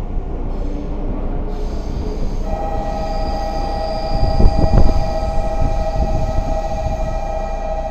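Steady two-pitched electronic tone, like a platform departure signal, that starts about two and a half seconds in and holds on, over the low rumble of trains in an underground station. The rumble swells louder about halfway through.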